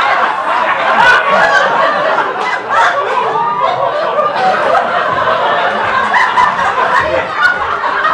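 A theatre audience laughing, many voices at once, loud and without a break.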